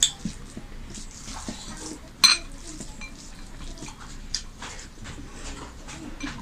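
A metal spoon clinking against plates and bowls as rice and curry are served and eaten: one loud ringing clink about two seconds in, with lighter taps around it.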